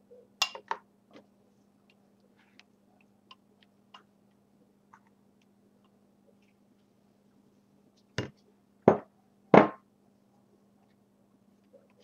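Metal spoon and spatula clinking and knocking against the mixing bowls as sour cream is scooped out: a few light clicks, then three sharp knocks in quick succession about two-thirds of the way through, over a faint steady low hum.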